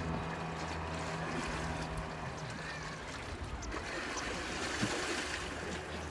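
Seaside water and wind noise, an even wash of waves among concrete breakwater blocks. A low steady engine hum fades out about a second in.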